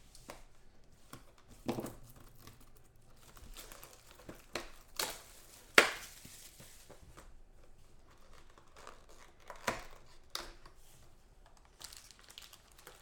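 Plastic shrink wrap torn off a sealed trading card box and crumpled by hand, in irregular sharp crinkles and rips, the loudest about six seconds in. Near the end the cardboard box and card packs are handled, with lighter rustling.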